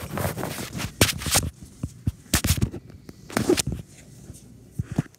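Handling noise from a phone held against the microphone while its holder walks: irregular rubbing and knocking, with a few louder thumps about a second in and again around two and a half and three and a half seconds in.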